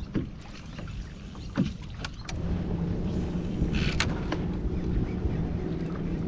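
Fishing kayak underway, its propeller pedal drive whirring steadily with water moving along the hull; the whir grows louder about two and a half seconds in as pedalling picks up. A few sharp clicks sound in the first half and once more a little later.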